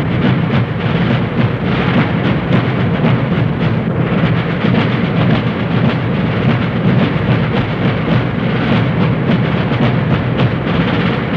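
Military field drums playing a fast, continuous cadence.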